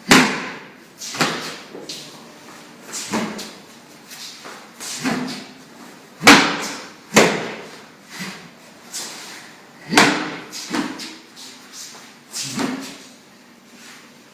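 Stamping footwork of a Xing Yi Quan rooster form: sharp, sudden thuds on a floor at irregular intervals, each followed by a short ring, with the hardest stamps at the start, about six seconds in and at ten seconds.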